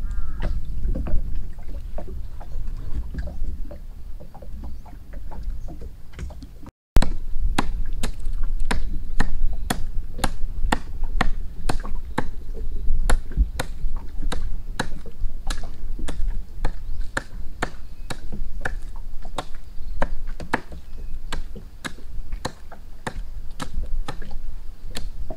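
Repeated sharp knocks of a hand tool striking a tree trunk, about two or three a second and steady for most of the time, over a low rumble. The strikes begin after a break about seven seconds in.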